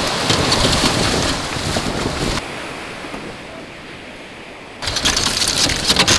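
Wind buffeting the microphone over rushing, splashing water as an open canoe is paddled through breaking waves. About two and a half seconds in, the sound drops to a quieter, steady wash of surf breaking on the beach, and near the end the loud wind and splashing return.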